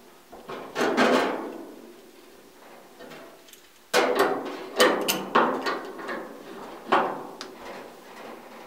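Wrenches clanking and scraping on the flared fittings of a gas flex line as the connection to a vent-free heater is tightened: one clank about a second in, a quick run of sharp clanks between about four and five and a half seconds, and another near seven seconds.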